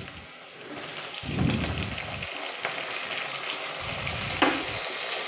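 Onions and green chillies frying in hot oil and ghee in an aluminium pressure cooker. The sizzle picks up about a second in as chopped tomatoes go into the pan, with a metal spatula stirring and one sharp knock against the pot a little after four seconds.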